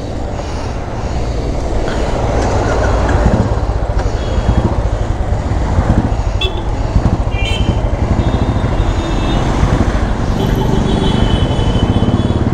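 Motorcycle engine running steadily underneath the rider amid busy street traffic, with short high horn notes sounding several times in the second half.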